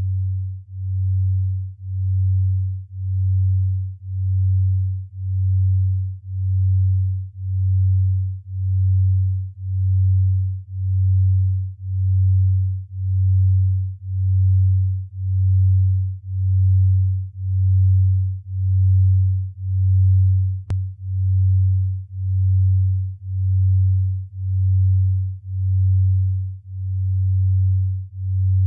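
A low, pure electronic tone pulsing evenly about once a second, like a slow heartbeat, with one sharp click about two-thirds of the way through.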